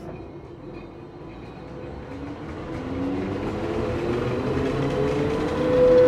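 Commuter train pulling away and gathering speed: a rising whine climbs steadily in pitch over the rumble of the wheels, growing louder throughout.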